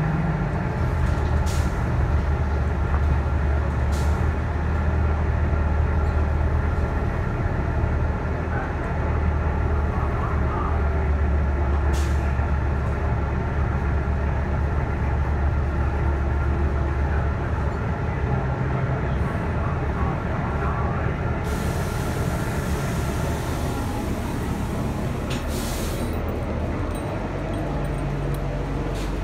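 Steady low engine drone and cabin rumble inside a city transit bus as it pulls in and comes to a stop, with a few sharp clicks and, about three-quarters of the way through, a few seconds of hissing compressed air.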